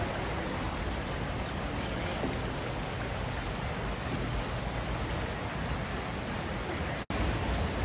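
Creek water rushing steadily over shallow riffles and rocks, with a brief gap about seven seconds in.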